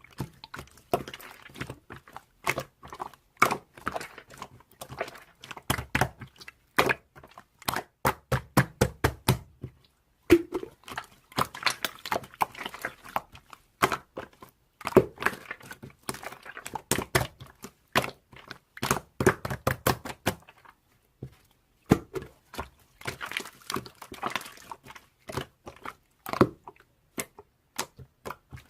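Slime being pressed, poked and stretched by hand, giving many sharp sticky pops and clicks, at times in quick regular runs with soft thuds under them.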